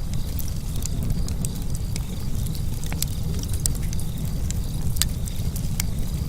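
Wood fire burning in a fireplace: a steady low rumble of the flames with irregular sharp crackles and pops.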